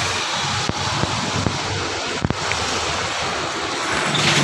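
A steady rushing noise, like wind on the microphone, with a few sharp knocks as a wooden-framed sofa is lifted and tipped onto its back.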